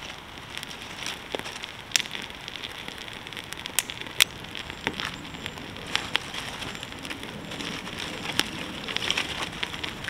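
Small campfire of dry twigs catching, crackling with scattered sharp pops over a steady hiss as the flames take hold; the loudest pops come about two and four seconds in.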